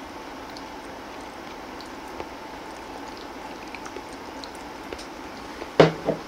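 Chopsticks ticking lightly against a porcelain bowl, then the bowl set down on a wooden table with a sharp knock near the end and a lighter knock just after, over a steady low hum.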